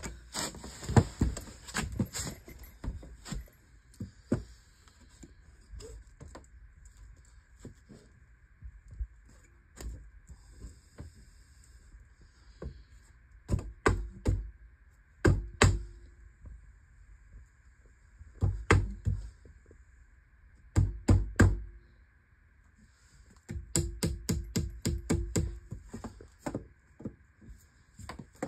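Scattered knocks and thuds of a hammer tapping a 2x4 wood stud into plumb, mixed with short runs of an impact driver toe-screwing the stud to the bottom plate. The knocks come in clusters, with a quick series near the end.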